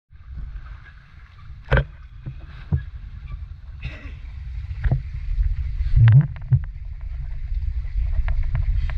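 River rafting sounds: water rushing and splashing around a raft, with a steady low rumble and scattered sharp knocks and splashes that come thicker near the end.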